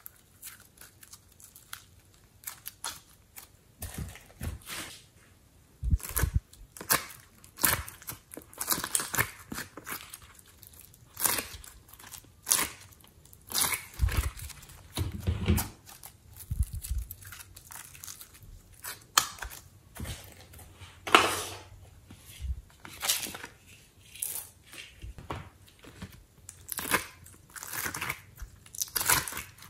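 Glossy slime being stretched, squeezed and peeled out of a heart-shaped mould by hand: irregular sticky clicks, pops and tearing crackles, some much louder than others.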